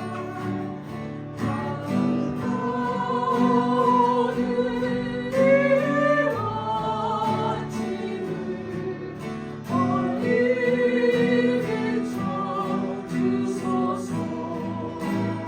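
Acoustic guitars strummed in a steady rhythm, accompanying a small group singing a hymn in held, wavering notes.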